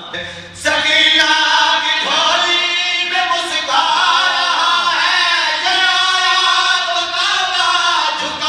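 Men's voices chanting a devotional Urdu qaseeda together over a microphone, in long held, melismatic lines without instruments, starting about half a second in.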